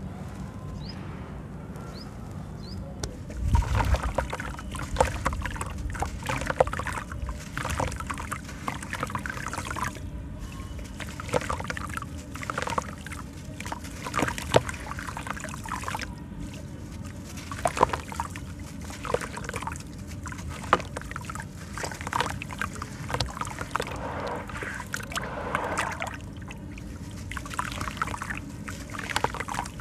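Wet sand and cement lumps crushed by hand in a plastic tub of water: gritty crumbling and crackling, with sloshing, splashing and trickling as the grit falls into the water in uneven handfuls. It starts about three seconds in with a heavy thump.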